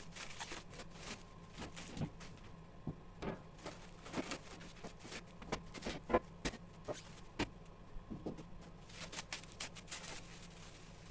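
Plastic stretch wrap crinkling and tearing as it is pulled off sheet-steel machine panels, with irregular crackles throughout and a few sharper knocks as the steel panels are handled and set down on a wooden floor.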